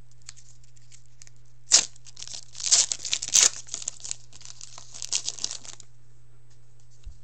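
A Panini Titanium hockey card pack being cut open with a knife and its wrapper torn and crinkled in loud bursts, starting with a sharp click about two seconds in.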